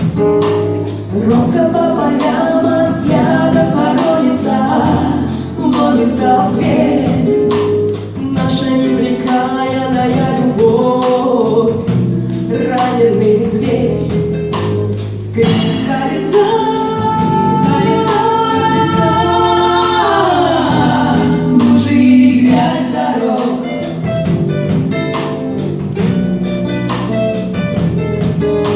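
Female vocal trio singing a pop song with a live band of bass guitar, drums and electric guitars. About fifteen seconds in there are long held notes that slide down at the end.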